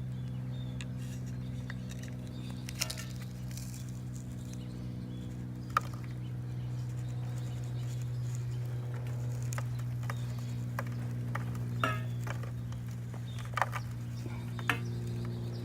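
Channel-lock pliers clinking and scraping against a freshly cast silver ball and its sand mold, a handful of sharp knocks scattered over a steady low hum.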